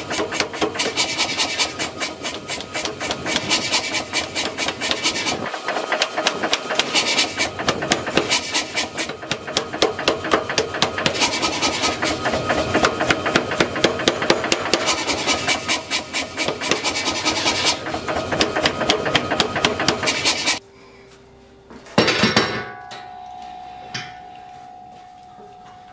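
A power hammer rapidly pounding a red-hot steel canister packed with scrap metal, several blows a second, stopping suddenly about twenty seconds in. A loud hammer strike on steel follows, leaving a ringing tone, and then a lighter hand-hammer blow on tongs clamped in a bench vise.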